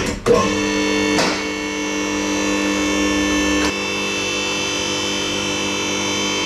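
Electric-hydraulic pump motor of a two-post car hoist running with a steady hum as it raises a vehicle. The lowest part of the hum drops away a little past halfway.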